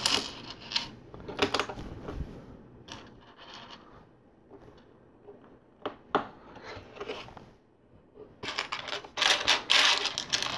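Small hard plastic LEGO pieces clicking and clattering as they are handled and snapped together: scattered single clicks, then a longer run of clatter near the end.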